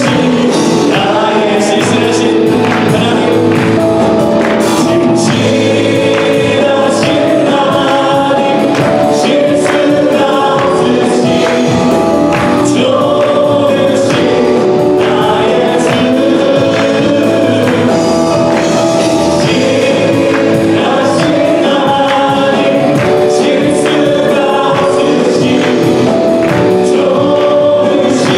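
A live worship band performs a Korean praise song: several men and women sing together over acoustic guitar and drums, with a steady percussion beat.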